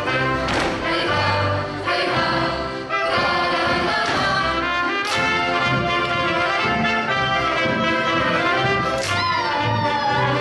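Lively folk dance music played by a brass band, with a regular beat in the bass. About nine seconds in, a loud high note slides downward.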